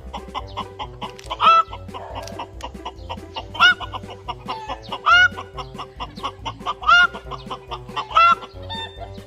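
Chicken calls: about five loud, short squawking calls, roughly one every second and a half. Background music with a low pulsing bass runs underneath.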